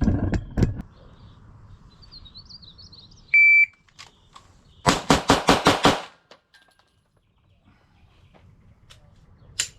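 A shot timer beeps once, then a Glock 17 9mm pistol fires six shots in rapid succession over just over a second: a Bill drill run against the timer.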